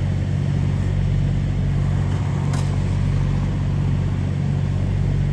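A vehicle engine running at a steady idle, a low even hum heard from inside the cabin, with a single short click about two and a half seconds in.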